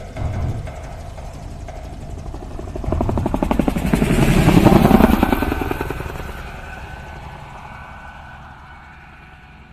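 Helicopter flying past, its rotor chop building over a few seconds, peaking about five seconds in, then fading away.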